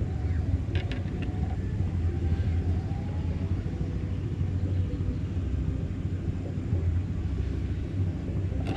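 A steady low engine drone runs throughout, with a faint hum above it. A few light clicks come about a second in.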